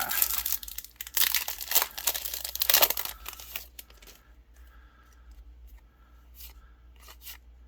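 A trading-card booster pack wrapper being torn open and crinkled, loud for about the first three and a half seconds, then a few faint clicks and rustles of the cards being handled.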